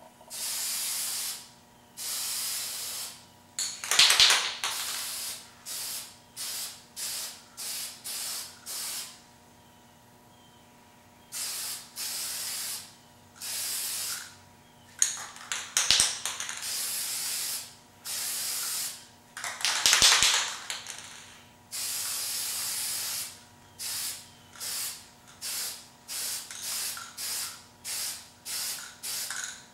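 Aerosol spray paint can hissing in repeated short bursts, with a few longer, louder sprays and a pause of about two seconds a third of the way in.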